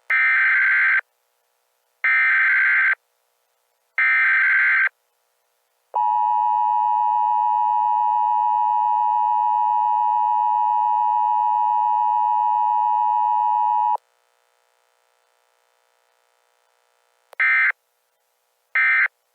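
Emergency Alert System tones: three one-second bursts of screeching digital header data, a steady attention tone held for about eight seconds, then two short data bursts near the end.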